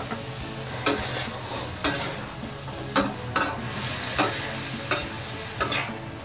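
String beans and pork stir-frying in a pan, sizzling steadily, while a spatula stirs them and scrapes and knocks against the pan about once a second.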